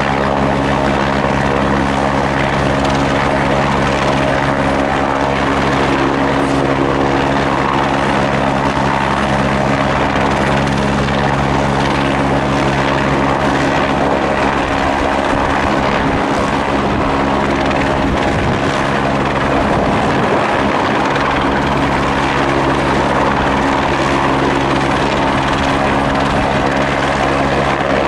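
Light single-engine helicopter hovering with a load slung beneath it on a long line; its rotor and turbine run steadily at a constant pitch.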